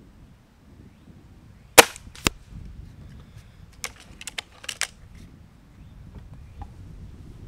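Gamo Swarm Maxxim .22 break-barrel air rifle firing one shot, a sharp crack, with a second, slightly weaker crack about half a second later. A second or so after that comes a quick run of metallic clicks and clacks as the barrel is broken open to cock the rifle for the next shot.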